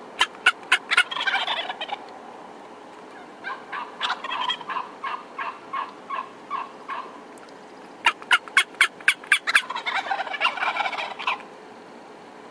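Wild turkeys gobbling: two gobbles, each a quick run of sharp notes breaking into a warbling rattle, one at the start and one about eight seconds in. Between them comes a slower series of about a dozen evenly spaced calls.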